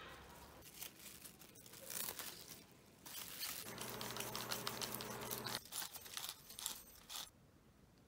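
Handheld sesame grinder grinding toasted sesame seeds: a dense crackling crunch that starts about three seconds in and stops about seven seconds in. Before it come a few faint scrapes of a spatula mixing dough in a glass bowl.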